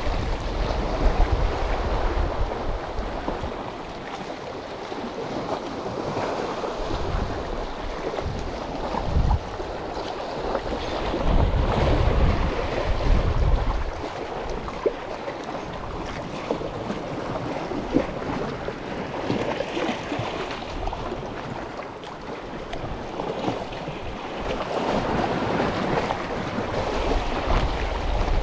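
Sea waves washing and splashing among concrete tetrapod blocks of a breakwater, with wind buffeting the microphone in gusts, strongest around the middle.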